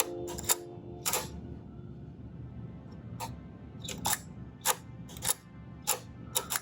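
Kodak Tourist's lens shutter clicking sharply, about eight times, as it is worked repeatedly after reassembly. Each crisp click shows the shutter catch is back in place and the shutter is firing.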